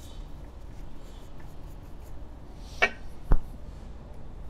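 Faint rubbing of a shop towel wiping the aluminium crankcase, then about three seconds in a short squeak followed by a single sharp knock.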